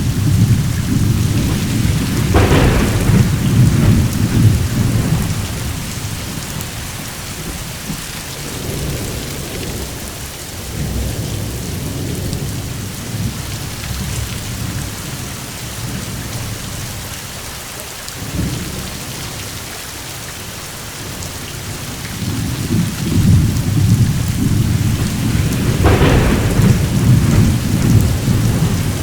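Steady rain with thunder. A sharp thunderclap comes about two seconds in and its rumble dies away over the next few seconds. A new rumble builds in the last third, with another clap near the end.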